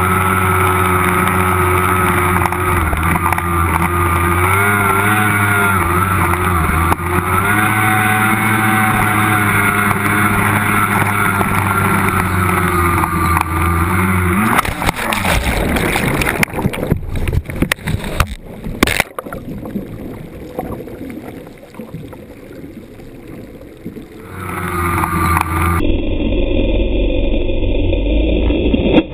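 25 hp, 550 cc racing outboard motor on a small race boat running at high revs with a steady, slightly wavering note. About halfway the engine note drops away abruptly, leaving choppy splashing and knocking of water against the hull, then the engine builds up again near the end.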